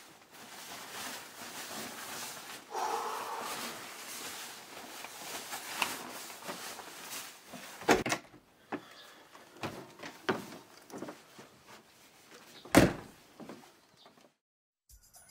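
Fabric rustling as a jacket is pulled on, then a string of clicks and knocks as a front door is handled. Near the end the door shuts with a loud thump.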